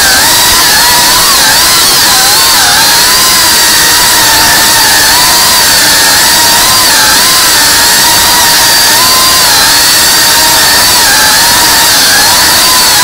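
Tiny FPV whoop drone's small motors and propellers whining, the pitch wavering up and down continuously as the throttle changes, over a steady hiss.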